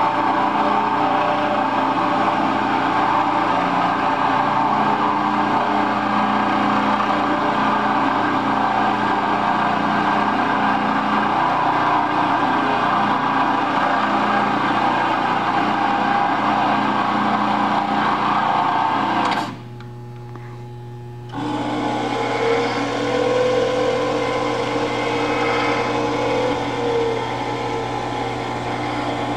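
Ransome 1000 lb welding positioner's electric gear drive running steadily, with a whirring hum, as it tilts its table. About two-thirds of the way through it stops suddenly for a couple of seconds, then starts again, a little quieter.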